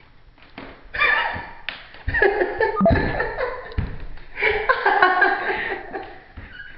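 Laughter breaking out in short bursts after a quiet first second: a man laughing openly and a woman behind the camera stifling giggles. A few dull thumps come through in the middle.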